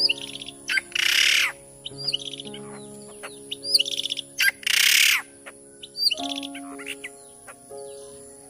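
Great hornbill lure-call recording: two loud, harsh calls, about a second in and about five seconds in, with quick high chirping trills between them, over background music with long held notes.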